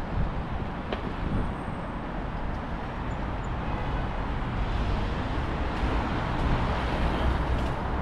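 City road traffic: a steady wash of noise from passing cars and scooters with a low rumble, swelling a little in the second half. A faint click about a second in.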